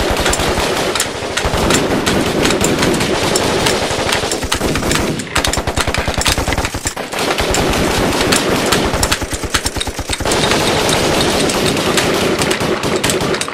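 Rapid automatic gunfire in long bursts, broken by a few short pauses.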